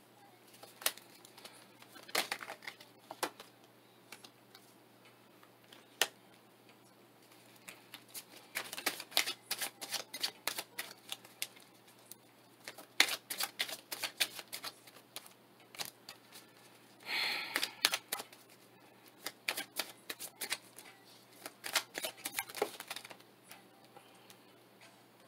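A deck of tarot cards being shuffled by hand: runs of quick clicks and taps as the cards drop and knock together, with a short rasping riffle about seventeen seconds in.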